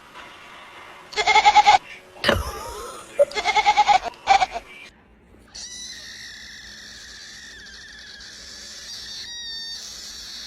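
Cat meowing in four short, wavering calls over a few seconds, followed by a quieter steady high-pitched sound.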